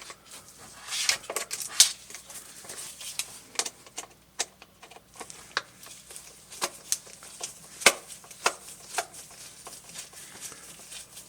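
A small 00 Phillips screwdriver backing tiny screws out of the plastic case of an Icom ID-5100 display unit. It makes irregular light clicks and scrapes as the driver tip seats, slips and turns in the screw heads, along with small handling taps on the unit.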